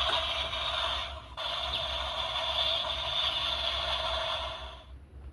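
Electronic sound effect from a Super Sentai gesture-gun toy's small speaker: a short noisy burst, then, after a brief break about a second in, a longer steady hissing effect that dies away near the end.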